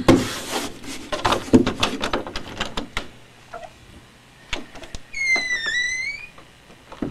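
Hands fumbling and knocking against a door and its knob in the dark, a rapid clatter of clicks. Then, about five seconds in, a door hinge gives one high creak that dips and rises in pitch as the door opens.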